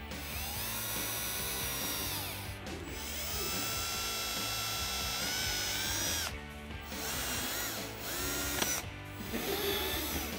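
Milwaukee cordless drill boring holes through a Mustang's plastic front bumper fascia: an 1/8-inch pilot hole, then a 1/4-inch hole. It runs in about four separate bursts, its whine rising as each burst starts and dropping off as it stops. Background music plays underneath.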